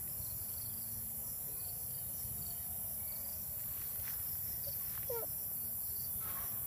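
Steady high-pitched chirring of field insects, with a low background rumble beneath it. A brief faint vocal sound comes about five seconds in.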